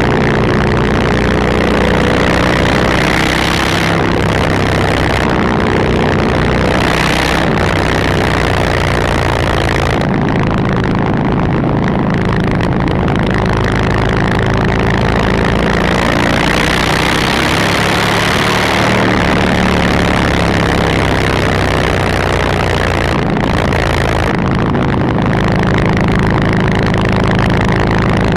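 Motorcycle engine running loudly near idle through its exhaust, with the note picking up a few times as the throttle is opened.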